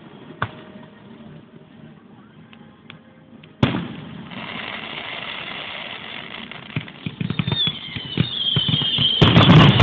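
Aerial fireworks: a big sudden bang about three and a half seconds in, trailing off into a long crackle, then a thin whistle that slowly falls in pitch and a dense run of loud bangs and crackling near the end.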